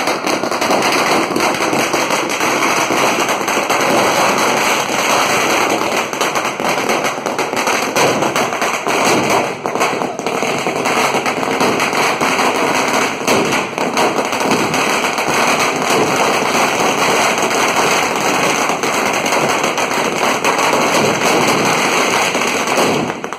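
Firecrackers going off on the road in a loud, dense, unbroken rapid crackle of bangs that lasts over twenty seconds and stops just before the end.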